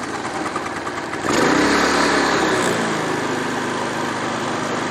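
Generac IQ3500 inverter generator's electric starter cranking its engine, which catches about a second in, revs up briefly, then settles into a steady run on choke with no load.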